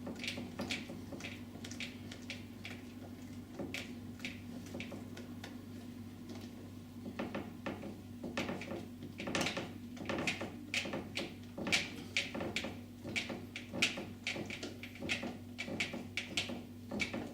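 Hand screwdriver turning a screw into a jack plug cavity fixing in a hollow uPVC door. It gives irregular small clicks and creaks, sparse at first and denser in the second half, as the fixing tightens and its legs open inside the door to grip.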